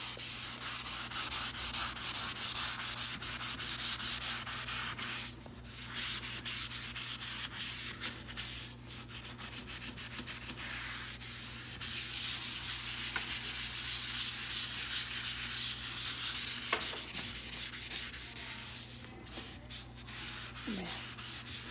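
A sponge scrubbing back and forth over a wet stainless steel stovetop, working the degreaser into stuck-on grease and grime, with a few brief pauses.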